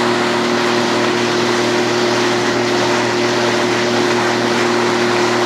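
Motorboat engine running steadily at a constant speed, a droning hum with a few fixed tones under a continuous rushing noise.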